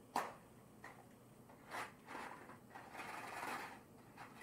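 A small pack of Nestlé Smarties being handled and opened by hand: a sharp click, a few short rustles, then about a second and a half of steady rustling of the packaging.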